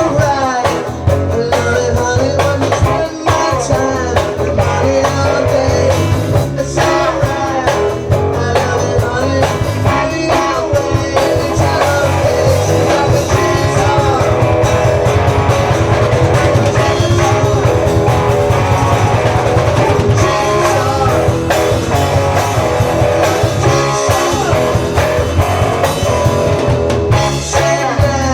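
Live rock band playing: electric guitar lines over bass and drum kit, loud and continuous.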